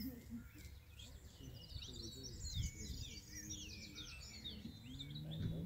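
Small songbirds singing and chirping in quick overlapping phrases, busiest in the middle, over a low rumble of outdoor noise.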